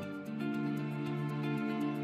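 Background music with sustained notes over a light, even ticking beat.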